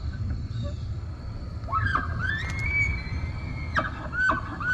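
Recorded bull elk bugle played from an interpretive sign's sound button: a whistle that rises and is held high for about two seconds, then breaks off into a run of short yelping notes, over a steady low rumble.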